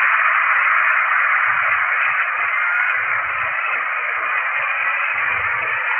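Large audience applauding steadily at the end of a speech.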